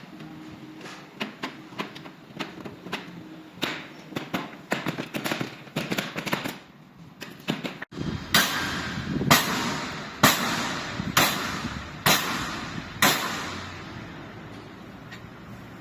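Repeated sharp blows or knocks. Lighter irregular taps and clicks come first, then six loud, evenly spaced strikes about a second apart, each with a short ringing tail.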